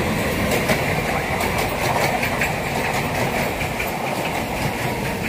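A train rolling on the track: a steady rumble, with light clicks of wheels over rail joints coming in pairs.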